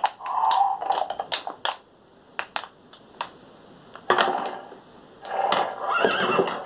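Thinkway Toys Bullseye horse toy playing its built-in sound effects while being handled: a fast clatter of hoof-like clicks in the first two seconds, a few single clicks, then a short sound about four seconds in and a longer, louder one from about five seconds.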